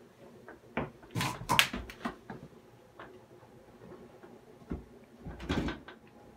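Wooden sauna wall panels being handled: a handful of short knocks and scrapes, the loudest a little over a second in and again about five seconds in.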